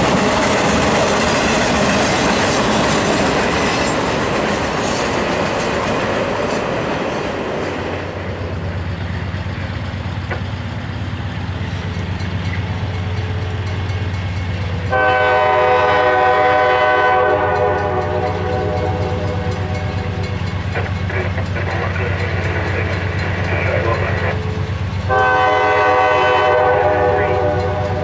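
Intermodal freight train rolling past, its wheels clattering on the rails, which dies away after about eight seconds. A CSX freight led by a GE C40-8W locomotive then approaches with a low diesel hum and sounds two long blasts on its multi-note horn, one about halfway through and one near the end.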